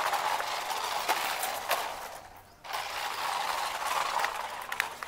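Small electric motors and plastic gearboxes of toy remote-control cars whirring, with a few light clicks. The whirring cuts out for about half a second a little past two seconds in, then starts again.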